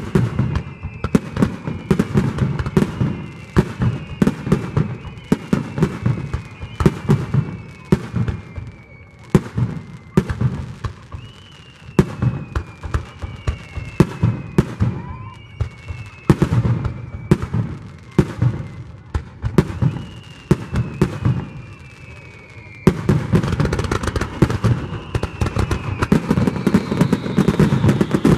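Aerial fireworks display: a rapid string of shell bursts and sharp bangs, with whistling shells sliding down in pitch over them. About 23 seconds in, the firing thickens into a denser, louder, near-continuous barrage.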